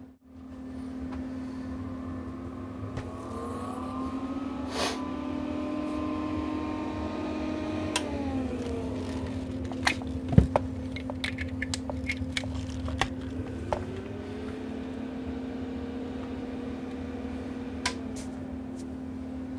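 A small electric motor spins up, runs steadily for a few seconds and winds down, twice, over a steady hum, with a burst of sharp clicks and taps between the two runs.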